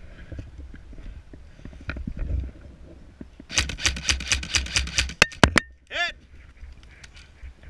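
Airsoft electric rifle firing a rapid string of sharp clacking shots, about seven a second for two seconds. Before it there is rustling and gear handling, and after it a short sweeping squeak.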